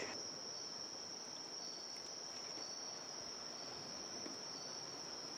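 Crickets singing: a steady high trill, with a fainter, lower trill coming and going.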